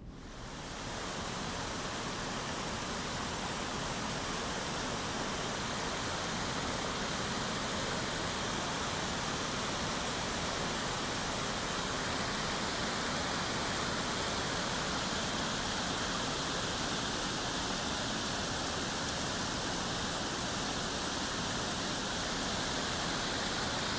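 A small babbling brook, its water running with a steady rushing sound that fades in over the first second.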